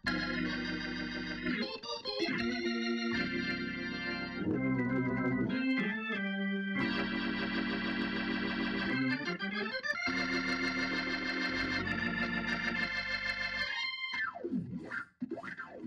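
Hammond organ playing held chords that change every second or two, with a quick falling-and-rising sweep near the end.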